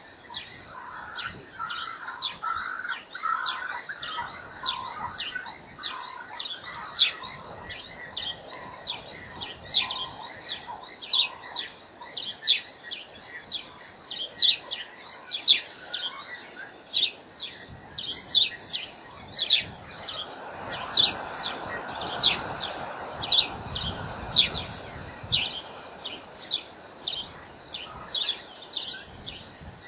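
Outdoor birdsong: one bird repeats a short, sharp, high note about once or twice a second throughout, over softer warbling calls from other birds in the first ten seconds or so. A low rushing noise swells and fades about twenty to twenty-five seconds in.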